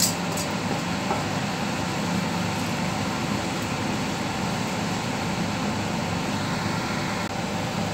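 Steady low mechanical hum of a ship's galley machinery, with a couple of faint clinks at the very start.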